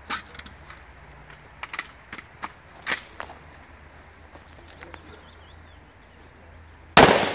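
A scattering of light sharp clicks and knocks, then a single loud gunshot about seven seconds in, echoing away over about a second.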